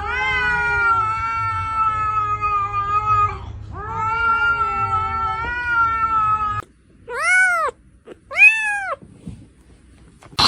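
A cat gives two long, drawn-out calls of about three seconds each, then two short meows that rise and fall in pitch.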